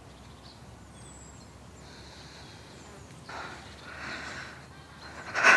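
A person breathing hard: a few noisy breaths a little past halfway, then a loud, sharp breath near the end.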